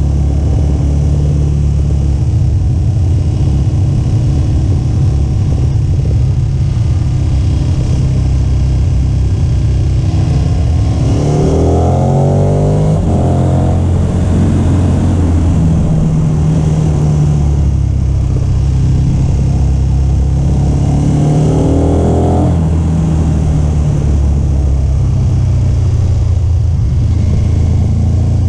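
KTM 1290 Super Adventure S V-twin engine running steadily under way, with its pitch climbing briefly twice as the rider accelerates, about a third and about three-quarters of the way through.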